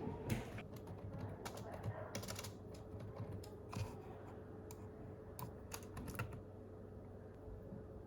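Typing on a computer keyboard: irregular key clicks for about six seconds, then tapering off, over a faint steady hum.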